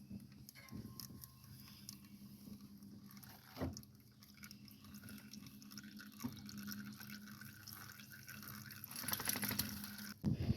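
Engine oil dripping from the tractor's drain into a pan, faint and uneven. Two light knocks come in the middle, and a rough rustling sound comes near the end.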